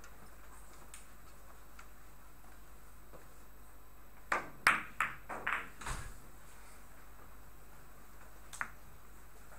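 A carom billiards shot in Italian five-pins billiards: about four seconds in, the cue tip strikes the ball, and a quick run of sharp ball-on-ball clicks and knocks follows over about two seconds as the balls collide and come off the cushions. A single further click near the end.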